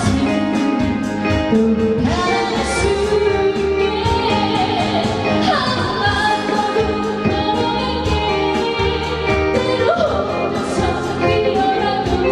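A woman singing a song with instrumental accompaniment, her voice gliding between held notes over steady chords.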